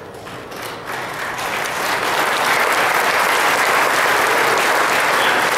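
Audience applauding, swelling over the first two seconds and then holding steady.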